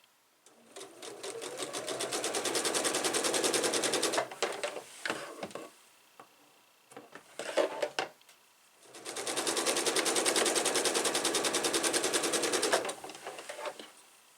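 Sewing machine stitching a seam through pieced quilt fabric in two runs of about four seconds, the first speeding up as it starts, with a few short clicks and knocks in the pause between.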